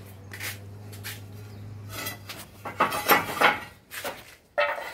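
Clay roof tiles clinking and clattering as they are pulled off and handled, a run of sharp knocks, loudest about three seconds in.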